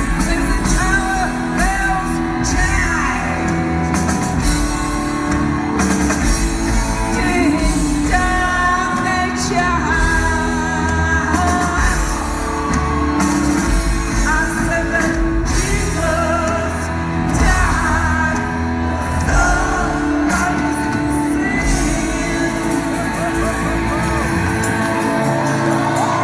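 Live rock band playing a song with sung vocals over bass, guitar and drums.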